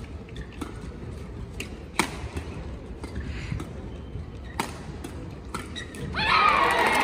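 Badminton rackets striking the shuttlecock in a rally, sharp clicks echoing in a large hall, the loudest about two seconds in. Just after six seconds, a crowd breaks into cheering and applause, louder than the rally.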